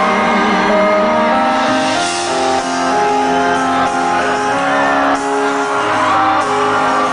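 Live pop concert music over the venue's sound system, recorded from the audience: sustained keyboard chords with a voice singing over them.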